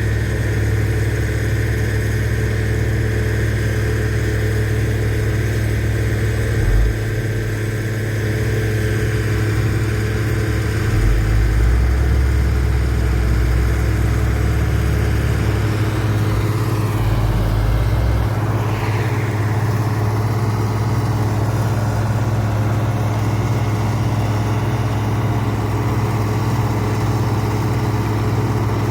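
Heavy road-paving machinery's diesel engine running steadily at a constant speed, with the low rumble shifting a little about a third of the way in and a faint rising-and-falling whine around two-thirds of the way through.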